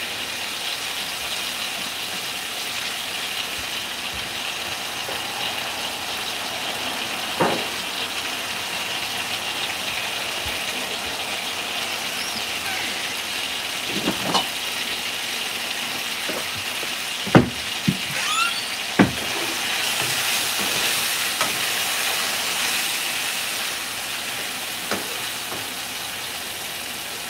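Food frying in a pan on a gas burner, a steady sizzle that grows louder for a few seconds past the middle. A few sharp clinks and knocks break in, the loudest about 17 seconds in.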